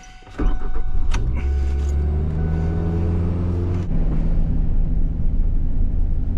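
Ford Ranger pickup's engine cranking and firing up about half a second in, then idling steadily; the sound shifts slightly about four seconds in.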